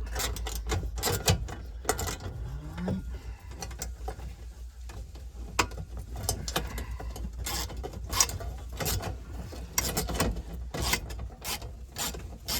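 Socket ratchet clicking in short, irregular runs while backing out a tight 8 mm bolt, with a brief rising squeak about three seconds in.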